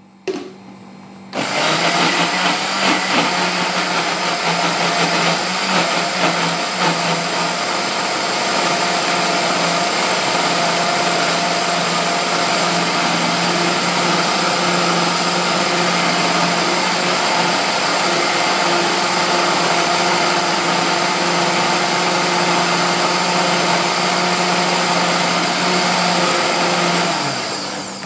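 Electric kitchen blender running, blending the green tikka marinade. The motor starts about a second in, runs steadily, and winds down just before the end.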